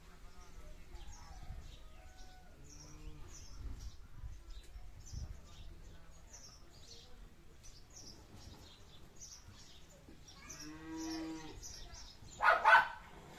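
Goat bleating: a few faint calls, then one clearer, longer bleat near the end. Right after it, a dog barks twice, loudly.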